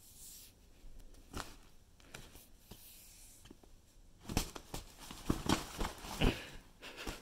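Fabric pop-up cat tunnel rustling and knocking as a cat scrambles and pounces inside it: a few faint taps at first, then a burst of loud, irregular rustles about four seconds in.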